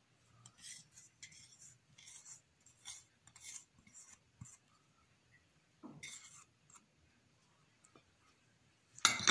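Silicone spatula scraping spiced oil out of a small bowl onto potatoes: a run of short scraping strokes, a soft knock, another scrape, then a louder clatter near the end as the spatula works in the steel bowl.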